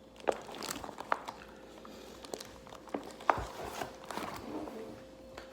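Thick plastic MRE pouch being handled and pulled open, with scattered sharp crinkles and clicks. A faint steady hum comes in about three seconds in.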